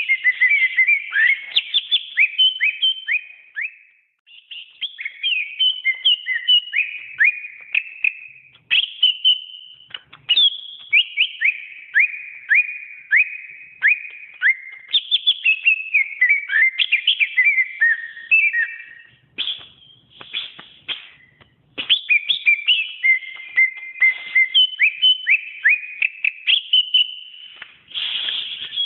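Greater green leafbird (cucak ijo) singing a long, varied song of fast whistled notes and downward sweeps, in phrases separated by short pauses.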